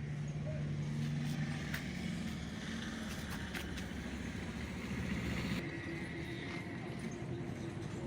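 A motor engine running steadily, its pitch stepping up twice, with scattered sharp clicks and knocks over it.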